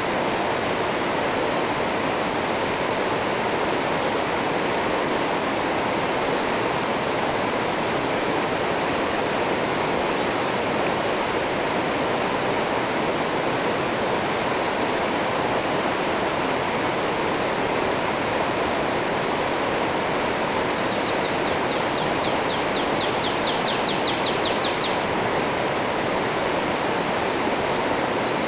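Steady rushing of river rapids, white water pouring over rocks into a pool. About three-quarters of the way through, a high, fast ticking trill lasts a few seconds.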